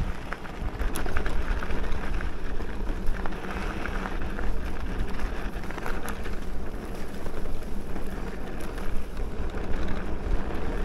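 Wind noise on the microphone over the steady tyre rumble of an electric mountain bike being ridden along, with a few faint clicks.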